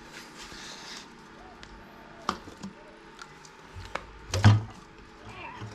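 Metal clanks and knocks of tools against engine parts while the engine is being dismantled: a few sharp strikes, the loudest with a dull thump about four and a half seconds in.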